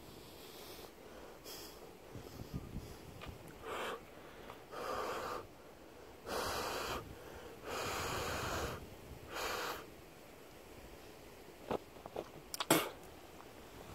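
A person breathing close to the microphone: about five long, breathy breaths in the middle, then a few sharp clicks near the end.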